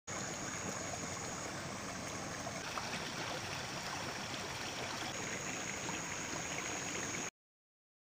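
Water running steadily through a narrow concrete irrigation channel, cutting off abruptly about seven seconds in.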